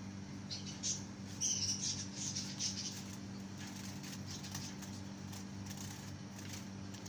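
Zebra finches calling in a cage: a quick run of short, high chirps in the first three seconds, then only scattered faint chirps, over a steady low hum.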